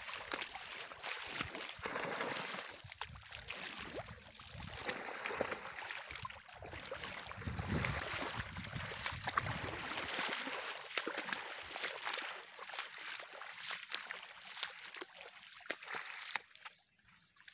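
Irregular water splashing and sloshing as a person wades through shallow flooded grass and a hooked snakehead thrashes in the shallows. The heavier sloshing comes in the first ten seconds or so.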